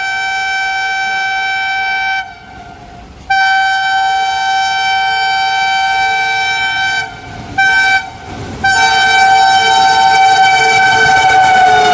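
Indian Railways diesel locomotive air horn sounding a string of blasts: two long blasts with a short break between them, a brief toot, then another long blast whose pitch sinks slightly near the end.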